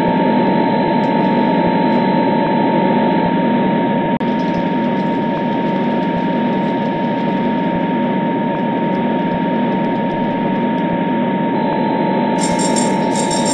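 Hornby HM6000 control app playing its electric-locomotive running sound for a model electric locomotive: a steady mechanical hum and rattle with a constant whine. About a second before the end a repeated ringing bell sound starts.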